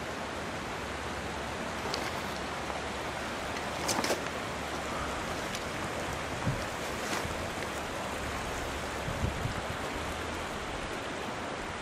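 Steady rushing of a creek flowing over rocks in a flood-scoured channel, with a few footsteps crunching on loose stones about four and seven seconds in.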